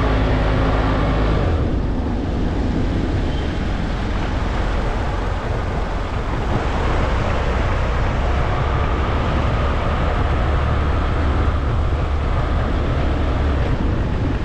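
Vehicle driving on a road: a steady low engine note under constant road and wind noise, the engine note changing about a second and a half in.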